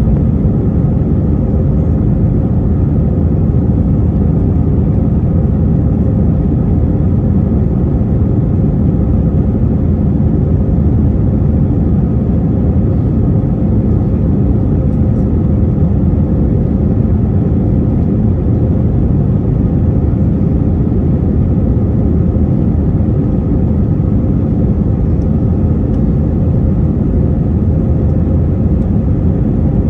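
Steady cabin noise of an Airbus A321-231's turbofan engines at climb power after takeoff, heard inside the cabin: a loud, even low rumble with a steady hum above it.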